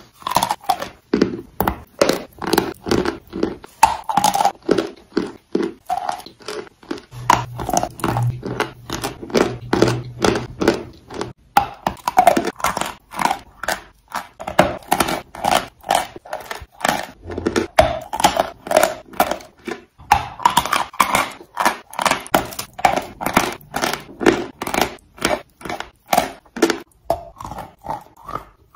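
Chalk being bitten and chewed, a steady run of sharp crunches, several a second.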